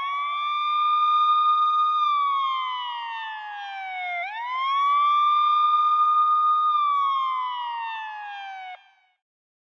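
Ambulance siren wailing: the pitch sweeps up quickly, holds high for about two seconds, then slides slowly down, in two full cycles. It cuts off suddenly near the end.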